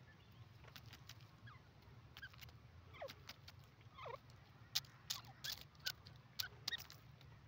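Grey francolin giving a few soft, short calls that slide downward in pitch, while pecking at dry stony ground. A quick series of sharp little clicks comes in the second half, over a faint steady hum.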